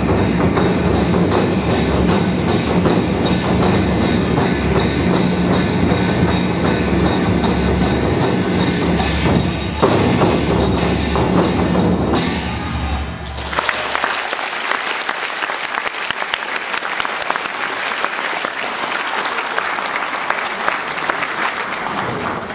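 Ensemble of Chinese drums on stands beating a rapid, even rhythm, closing the piece about thirteen seconds in, then audience applause.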